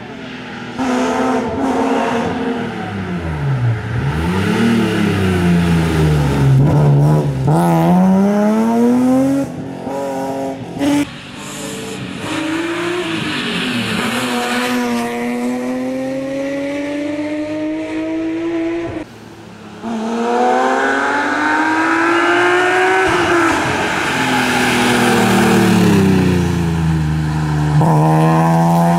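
BMW M3 E36 rally car's straight-six engine driven hard on a tarmac stage. The pitch climbs under full throttle and drops back at each gear change or lift-off, across several short passes with abrupt cuts between them.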